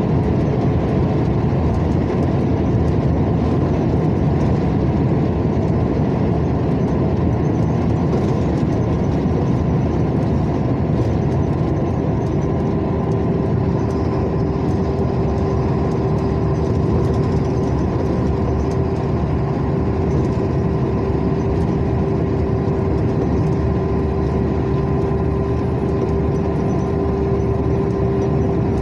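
A motor vehicle driving on a highway: steady engine and road noise, with a steady hum setting in about twelve seconds in.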